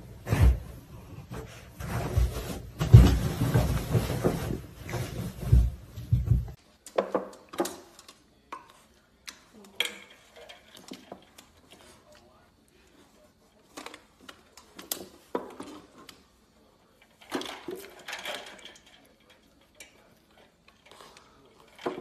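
Stainless steel pet bowls clanking and rattling in their wooden stand as a dog climbs into them and paws through water and ice cubes, giving scattered knocks, clinks and splashes. For the first several seconds there is loud rumbling and thumping instead.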